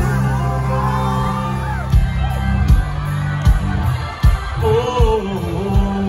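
Live country concert music heard from within the crowd: an amplified band with a steady drum beat and a singer's voice.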